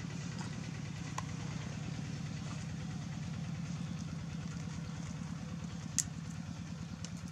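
An engine idling steadily with an even, rapid low pulse. A faint click comes about a second in, and a sharper click about six seconds in.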